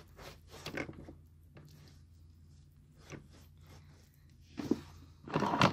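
A wad of tissue being rubbed and wiped across a wooden floor and a toy road: soft scuffs and rustles, with a louder burst of rustling about five seconds in.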